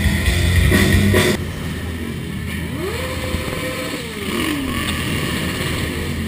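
Rock music with drums for about the first second, then a motorcycle engine revving up, holding its pitch for about a second and dropping back, over steady background noise.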